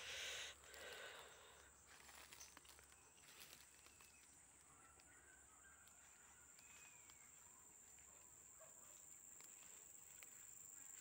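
Near silence, with a faint steady high-pitched insect drone throughout. A brief rustle of fern fronds being pushed aside comes in the first second.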